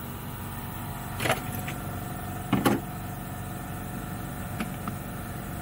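A steady machine hum in the background with a few sharp knocks and clicks of a carburetor rebuild kit box and its parts being handled, the loudest a double knock about two and a half seconds in.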